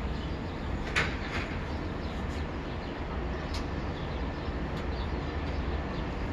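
Steady low rumble of background noise with a faint hiss, and a sharp click about a second in.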